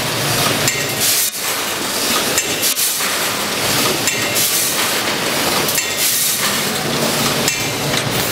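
Vertical form-fill-seal packaging machine with a linear weigher running while bagging product, a steady mechanical clatter with repeated clinks and knocks every second or two.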